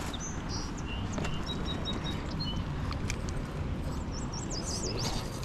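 Small birds chirping in quick high notes, twice in short runs near the start and again near the end, over the steady low rush of a fast-flowing mountain river.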